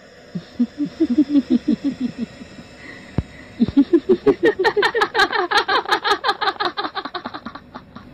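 Cackling laughter in rapid 'ha-ha-ha' pulses. A short run comes first, then a sharp click, then a longer run that climbs higher in pitch before dying away.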